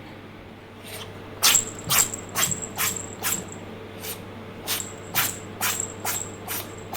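A Bengal kitten sneezing over and over, a rapid run of about a dozen sneezes roughly two a second, starting about a second in: a sneezing fit from cat flu.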